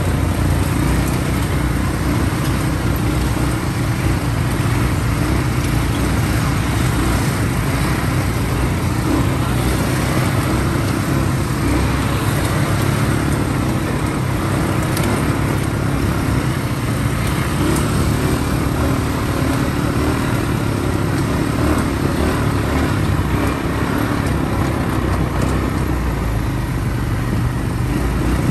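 ATV engine running steadily while riding, a constant rumble with a hiss over it that neither rises nor falls.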